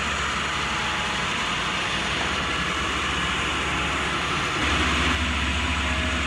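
Concrete mixer truck's diesel engine running steadily, a low hum under an even hiss. The hum strengthens slightly near the end.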